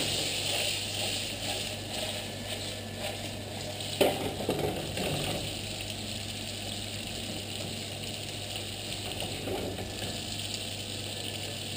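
Tortellini sizzling in a frying pan of browned butter with sage and pine nuts, a steady crackling hiss, with one sharp knock about four seconds in.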